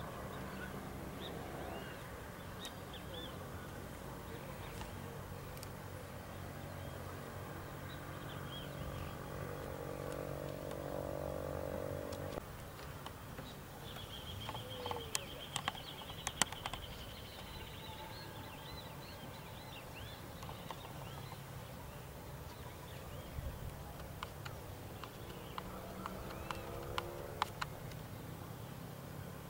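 Hushed open-air ambience of a crowd and players standing silent at a rugby ground: faint birds chirping over a low background hum, which stops suddenly about twelve seconds in, and a few sharp clicks near the middle and towards the end.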